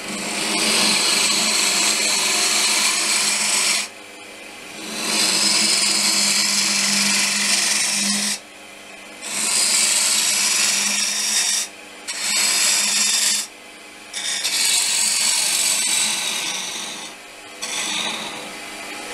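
A homemade ball gouge cuts into green oak spinning on a wood lathe, hollowing out the inside of the blank. There is a loud, noisy cut in about five passes of a few seconds each. Between the passes the noise drops to the steady hum of the lathe running.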